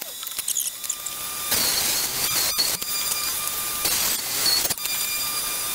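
Table saw running and ripping 3/4-inch plywood, a steady whine and hiss of blade and motor with a few sharp knocks from the wood. The sound is thin at first and fills out about a second and a half in.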